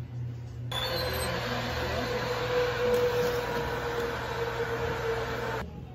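Convection oven fan running with the oven door open: a steady rushing noise with a faint whine, which starts and stops abruptly.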